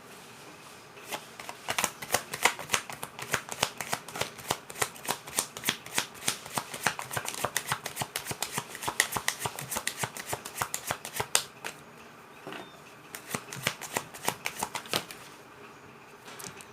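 Tarot cards shuffled by hand: a fast, dense run of card flicks and riffles lasting about ten seconds, a short pause, then a second shorter run.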